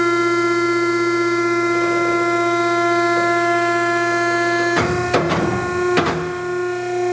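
Hydraulic pump unit of an American Eagle welding positioner running with a steady, pitched hum. About five seconds in come three or four sharp knocks.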